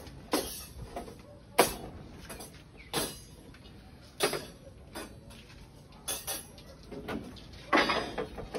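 A series of sharp knocks, about one every second or so at irregular spacing, each dying away quickly, with a louder cluster near the end.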